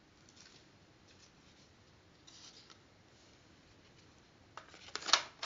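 Quiet room tone with faint rustling about two and a half seconds in, then a quick cluster of sharp clicks near the end.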